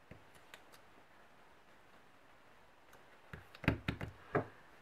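Small handling noises on a desk: a few faint clicks, then a short cluster of sharper taps and knocks about three and a half seconds in, as craft tools and washi tape are handled on a planner page.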